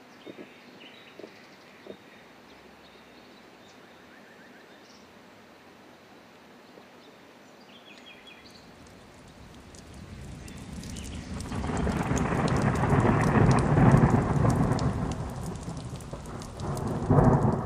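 Summer thunderstorm: after a quiet start, a long roll of thunder builds about ten seconds in, peaks and eases, and a second thunderclap comes near the end, over rain pattering on water.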